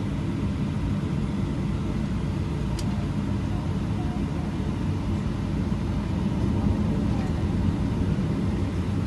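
Steady low rumble of a Boeing 737-800's CFM56 turbofan engines, heard inside the passenger cabin as the airliner taxis onto the runway. It grows slightly louder in the last few seconds, and there is a single sharp click about three seconds in.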